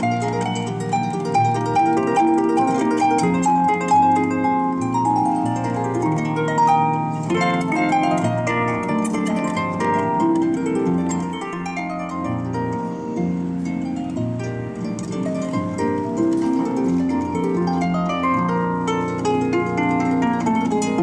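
Solo harp playing a light waltz: plucked melody notes over a repeating low bass, with runs of notes sweeping up and down across the strings.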